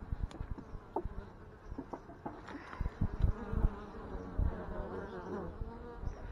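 Honeybees buzzing as they fly in and out of a hive entrance close to the microphone, several overlapping wavering hums that swell in the middle, among scattered low thumps.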